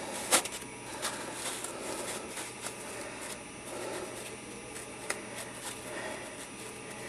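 Soft rustling and scraping as hands press and hold a glued block of green foam in place, with a sharp click just after the start and a few fainter clicks later.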